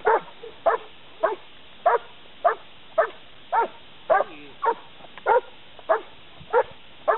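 German Shepherd barking steadily at a helper with a bite sleeve, about thirteen sharp barks at an even pace of nearly two a second. This is the bark-and-hold of protection work, the dog guarding the helper at the blind.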